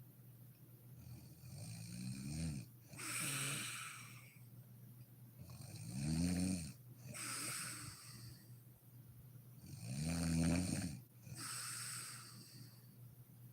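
A sleeping woman snoring in a steady rhythm, about three breaths: each inhale a pitched snore that bends upward, followed by a breathy, hissing exhale, one breath every four seconds or so.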